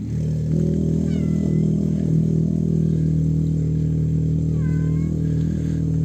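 A cat meowing twice, two short high calls that drop in pitch and then level off, one about a second in and one near the end, over steady background music.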